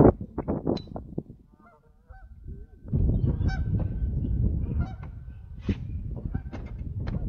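Geese honking several times over low wind rumble, with scattered knocks and a loud knock at the very start.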